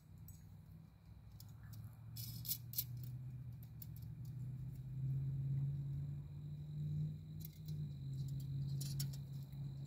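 Light metallic clicks and rattles of a sheet-metal camp wood stove's parts and small nuts being handled during assembly, in two short clusters, over a steady low hum that grows louder about halfway through.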